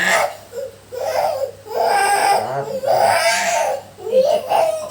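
Young child crying during a massage, in several drawn-out bouts with short breaks for breath between them.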